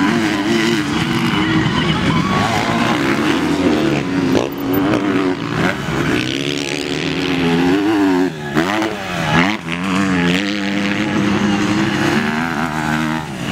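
Several motocross dirt bikes racing past, their engines revving up and down over and over as the riders work the throttle, with the overlapping whines rising and falling.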